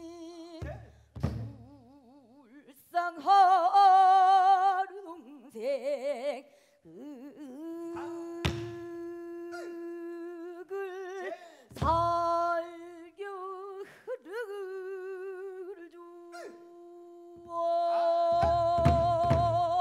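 A woman singing pansori in the sorrowful gyemyeonjo mode, long held notes with heavy, wide vibrato and sliding pitch, accompanied by a few strokes on a buk barrel drum, with a cluster of drum strokes near the end.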